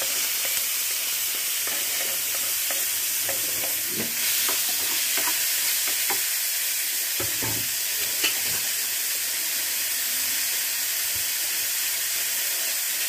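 Chopped tomatoes and bitter gourd sizzling in hot oil in a frying pan, with a wooden spatula knocking and scraping against the pan as they are stirred.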